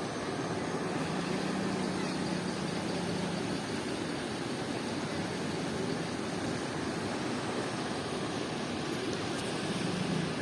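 Steady rushing noise of a river running in large waves, with a faint low hum in the first few seconds.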